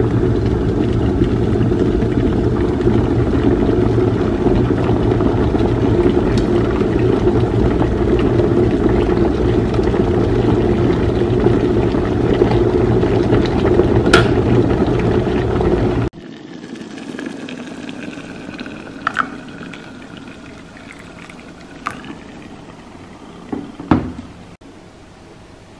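Russell Hobbs electric kettle at a rolling boil, a loud steady rumble that cuts off suddenly about two-thirds of the way through. After it, quieter water sounds with a few light knocks.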